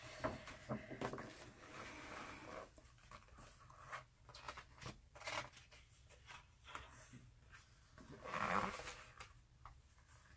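Glossy pages of a large hardcover art book being handled and turned: soft paper rustles and small taps, with one louder page-turn swish about eight seconds in.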